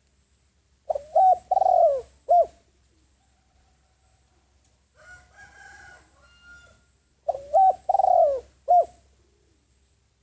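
Spotted dove cooing, two phrases of about four notes each, the first about a second in and the second about seven seconds in. A fainter, higher sound falls between them.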